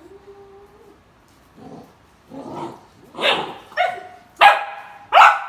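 A Great Dane barking in play at a cat, about six sharp barks starting about a second and a half in and growing louder.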